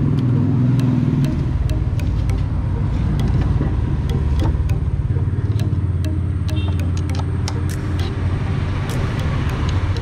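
A motor vehicle engine running with a steady low rumble, with scattered light metallic clicks and taps from tools and brake parts being handled.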